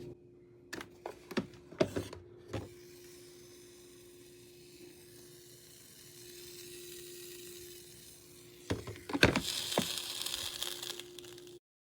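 A drip coffee maker with a steady low hum, a few sharp clicks and knocks in the first few seconds, then a hissing, sizzling burst with knocks near the end that cuts off suddenly.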